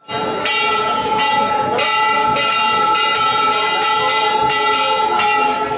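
Hindu temple bells rung over and over, a metallic clang roughly every half second over the bells' steady, overlapping ringing.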